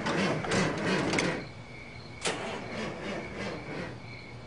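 A motorhome's engine being cranked over by its starter without catching, in a rapid repeating churn. About halfway a sharp click comes, the cranking fades, and crickets chirp steadily.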